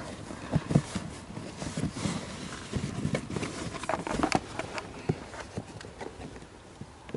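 Wires being fed under car carpet and plastic trim by hand: irregular rustling and scraping with light clicks and taps.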